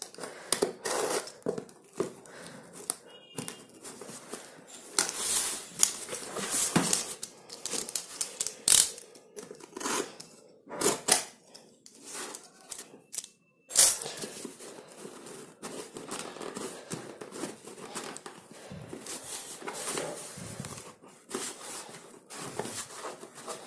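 Utility knife slicing through the packing tape and cardboard of a shipping box, with the cardboard and tape tearing as the flaps are pulled open: irregular scraping and ripping strokes with short pauses between them.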